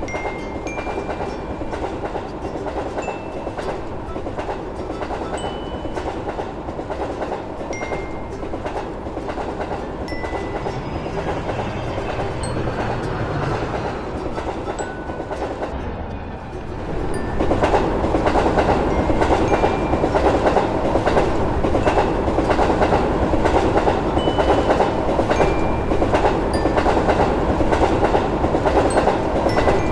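Train passing on the rails, its wheels clattering in a steady clickety-clack. The sound grows louder about 17 seconds in and stays loud.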